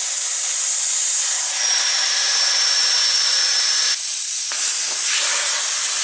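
Air hissing steadily out of an off-road tyre's valve stem with the valve core taken out, as the tyre is let down from about 2 bar toward 0.5 bar for a bigger footprint on soft ground. A thin high whistle rides on the hiss for a couple of seconds in the middle.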